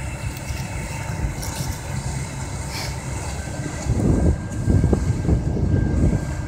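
Case IH cotton picker running steadily as it harvests, a low engine drone with a faint steady machine whine. About four seconds in, louder uneven low rumbling from wind on the microphone comes in over it.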